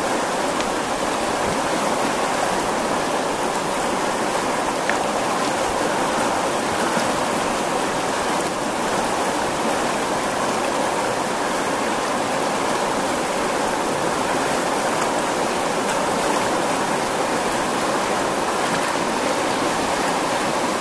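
Fast, turbulent water of the Botan River rushing over rocks and standing waves: a steady, unbroken rush of flowing water.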